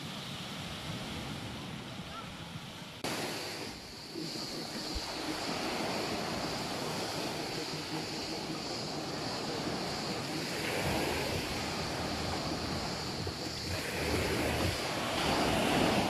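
Sea waves breaking and washing up a sand-and-pebble beach, surging louder near the end.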